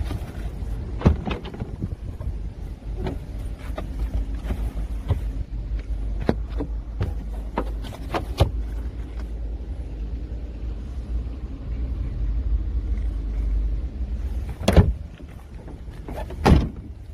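Handling clicks and knocks at a car's open trunk as the cargo floor panel over the spare tyre is lifted and set back down, with two louder thumps near the end, over a steady low rumble.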